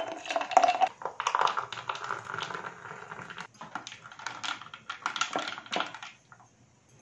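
Soda water poured into glass jars over ice and ground grapes, fizzing and crackling, then stirred with a straw, ice clicking against the glass; it stops about six seconds in.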